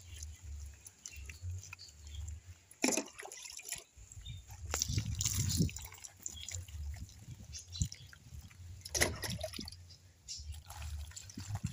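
Water poured from a cup over a soapy dog's head, rinsing off shampoo lather and splashing and dripping onto the wet cloth on the chair seat, in several separate pours.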